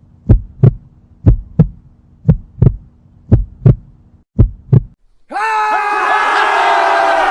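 Heartbeat sound effect: double thumps, lub-dub, about once a second over a faint low hum, five beats in all. It cuts off about 5 seconds in, and after a short gap a crowd of voices starts shouting together.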